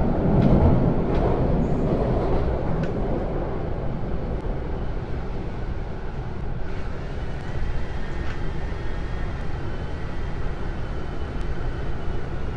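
Hong Kong MTR subway train running, heard from inside the carriage: a steady rumble and rush, louder in the first couple of seconds, with a faint high whine coming in about halfway through.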